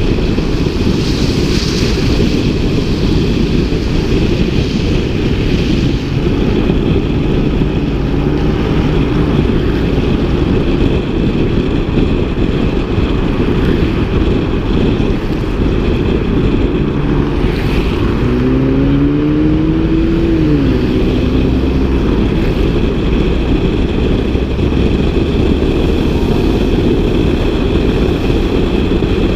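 Seat Altea with an eTuners aftermarket exhaust, driving with a steady, dense low rumble. About 18 seconds in, the engine note climbs in pitch as it revs up, then falls back a few seconds later.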